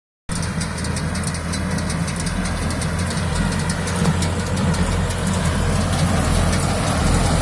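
Tractor diesel engine running steadily at constant speed, with rapid ticking over it; it starts about a third of a second in.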